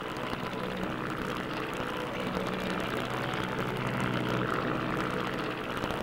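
Airboat's aircraft-type engine and propeller running steadily as it skims across shallow water and sawgrass, the drone swelling a little past the middle and easing off near the end.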